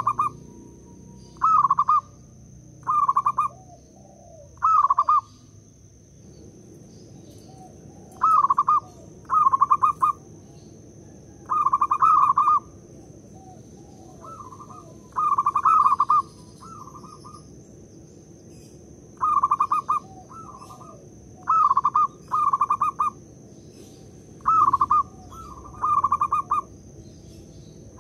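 Zebra dove (perkutut) cooing its staccato song: short bursts of quick trilled coos, single or in runs of two to four, repeated with gaps of a second or more.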